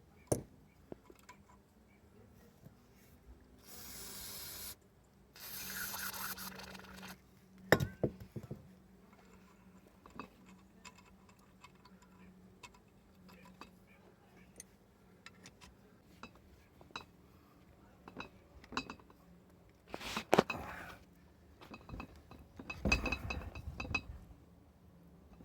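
Hand tap and tap wrench cutting new threads in a small-block Chevy cylinder head: scattered metal clicks, clinks and scraping as the tap is worked and backed out where it binds. Several short bursts of hiss come about four seconds in, again just after, and twice near the end.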